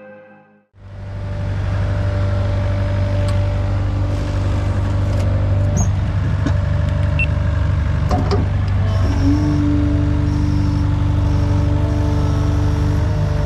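Diesel engine of a piece of earthmoving machinery running steadily with a deep, even hum, coming in abruptly about a second in and holding on, with a few light clanks and a thin steady whine joining in the second half.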